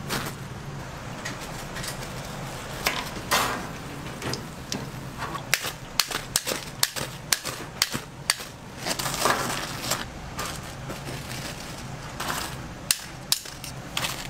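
Busy kitchen handling at a deep-fryer: a dense run of sharp clicks and knocks, like metal utensils such as a wire strainer knocking on steel, with a few short hissing bursts. A steady low hum lies underneath.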